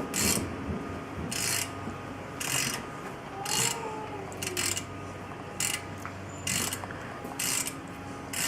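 A ratcheting hand tool worked in short strokes, giving a brief burst of clicking about once a second as a part is turned loose.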